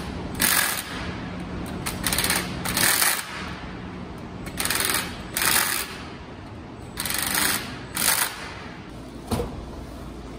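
Cordless impact driver hammering on the wheel bolts of a power wheelchair's rear wheel, in about seven short bursts, each under a second, with pauses between them.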